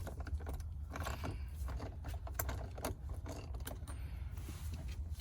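Light metallic clicks and clinks of a 15/16 socket wrench working the already-loosened steering wheel retaining nut off its shaft, the ticks coming unevenly over a low steady hum.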